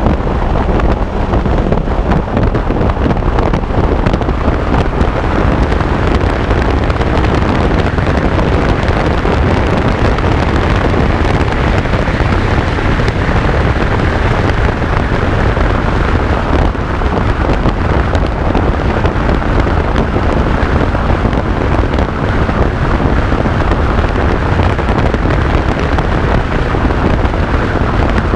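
Wind rushing over the microphone of a Suzuki Bandit motorcycle ridden at about 80 to 130 km/h: a loud, steady rush with the motorcycle's engine and road noise beneath it.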